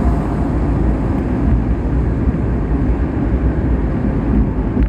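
Car driving along a road at speed: a steady rumble of tyre and engine noise.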